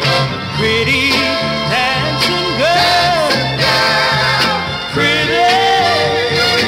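Soul ballad playing from a 45 rpm record: a man singing with vibrato over steady bass and backing instruments.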